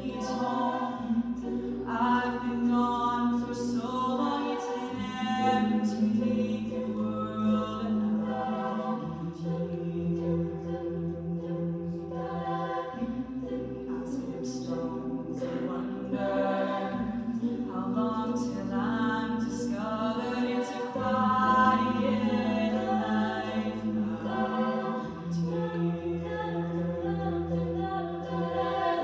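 A collegiate a cappella group singing a pop arrangement, with a lead voice over sustained backing chords that change about every four seconds, a low bass line, and vocal percussion clicking over the top.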